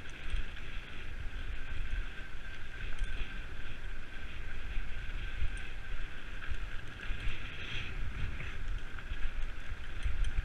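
Mountain bike tyres rolling over a dirt and gravel track, a steady rushing noise, with wind buffeting the microphone as a low, uneven rumble.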